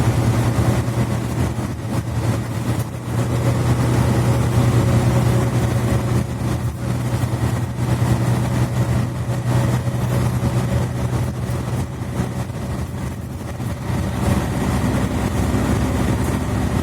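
Mercedes-Benz Citaro C2 articulated bus's engine and Voith automatic gearbox running with a steady low hum, heard from inside the passenger cabin. The hum eases somewhat in the last few seconds.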